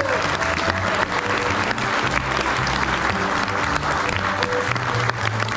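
Theatre audience applauding, a dense patter of many hands clapping, over music with held low notes.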